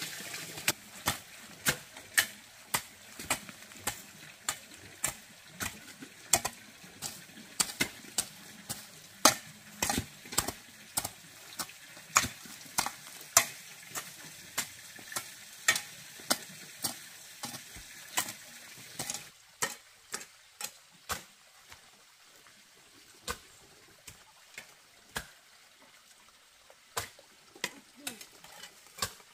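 Sharp knocks and clicks, one or two a second, over a faint steady hiss. About two-thirds of the way through the hiss drops away and the knocks thin out but go on.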